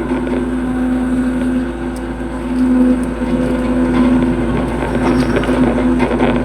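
Hitachi hydraulic excavator's diesel engine running steadily under load, with a constant engine note.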